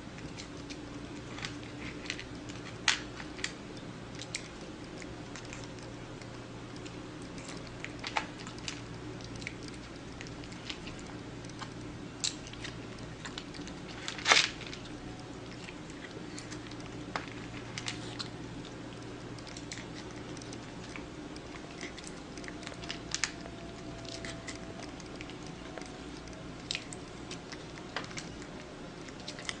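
A cat chewing and eating food, with scattered light clicks and crunches and one sharper click about halfway through, over a steady low hum.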